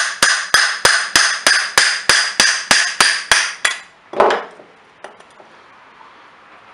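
Brass hammer tapping on a nut threaded onto the crankshaft end of a Stihl BR420 blower, driving the crankshaft out of its crankcase half: a fast, even run of sharp, ringing metal taps, about three a second. The taps stop after about three and a half seconds, and one duller knock follows.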